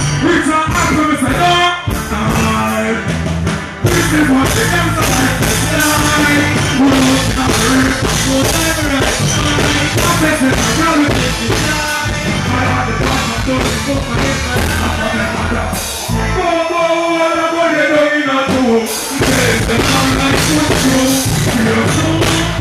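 Dancehall singer performing live into a handheld microphone over a loud backing riddim through the stage PA. About three-quarters of the way through, the bass and beat drop out for a couple of seconds while the voice carries on alone, then the riddim comes back in.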